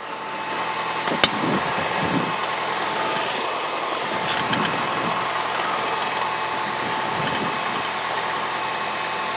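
Cessna 172N's four-cylinder Lycoming engine and propeller heard through the headset intercom, building up over the first second or two and then running steadily. There is one sharp click about a second in.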